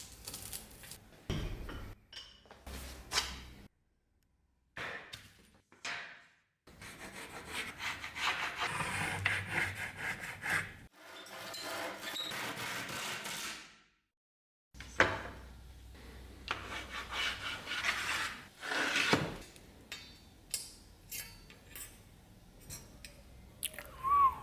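Abrasive hand work on a workpiece: rubbing and scraping strokes in several short clips cut apart by moments of dead silence, with a brief squeak near the end.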